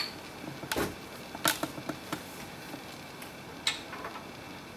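A handful of light clicks and knocks, about five spread out, with one duller thump about a second in: a metal side bracket and 8 mm screw being handled and fitted against the wooden frame of a bedside crib.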